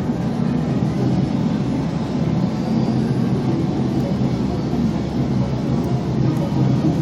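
Steady low din of a game arcade: a dense rumble of many machines with no single sound standing out.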